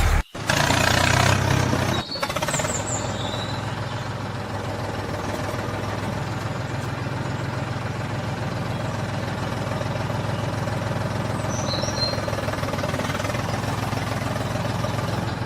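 An engine running steadily with a low, even hum, louder for the first two seconds and then settling to a constant level.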